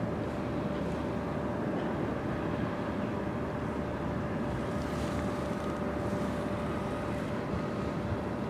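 Steady low rumble of a passing general cargo ship's engine, with a faint steady hum running through it.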